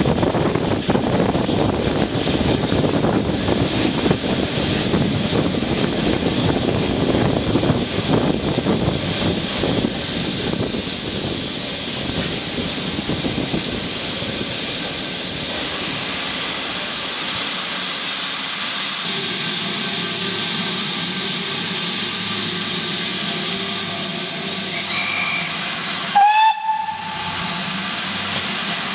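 A steam-hauled train running along the line with a heavy rumble of wheels and wind, which eases off after about ten seconds as the train slows. A steady hiss of steam from the locomotive remains, and a short rising squeal comes near the end.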